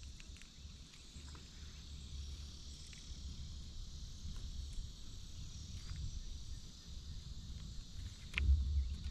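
Steady high insect chorus, with a low rumble underneath that swells near the end and a few faint clicks as a small crappie is handled and unhooked.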